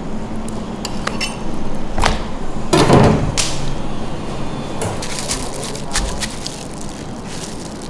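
Kitchen knife cutting and cracking through a suckling pig's ribs on a wooden chopping block: a few sharp knocks and cracks, the heaviest about three seconds in, followed by lighter clicking handling noises.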